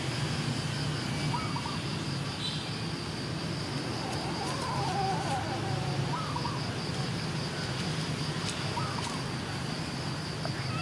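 Cats meowing faintly a few times, with one longer falling meow about four seconds in, over a steady background hum.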